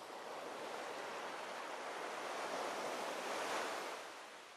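Sea surf: a rush of breaking waves that swells for about three and a half seconds, then fades away.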